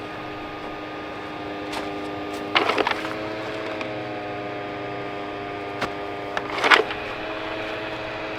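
Brookstone robot vacuum cleaner running, its motor giving a steady whine. Two short bursts of clattering, about two and a half seconds in and again about two-thirds of the way through, are each followed by a slight shift in the whine's pitch.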